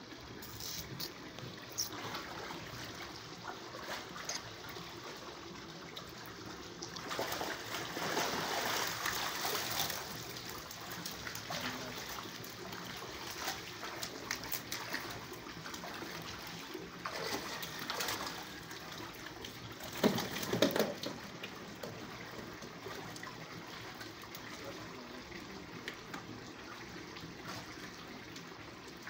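Pond water sloshing and splashing as people wade and drag a seine net of catfish through a concrete fish pond. The splashing is heavier about seven to ten seconds in, with a couple of sharp splashes about twenty seconds in.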